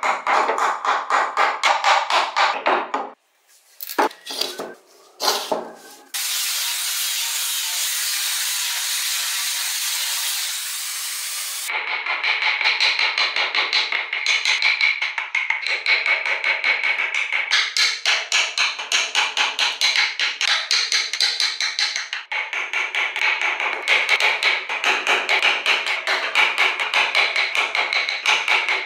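A wooden-handled carving chisel struck again and again with a mallet as it cuts into a wooden block, in quick runs of several taps a second. After a short break with a few single taps, a steady machine hiss runs for about six seconds before the chisel tapping starts again.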